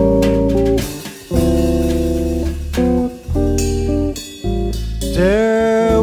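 Jazz combo playing an instrumental passage: hollow-body electric guitar chords over a bass line, changing every half second or so. Near the end a held melody note slides up into place.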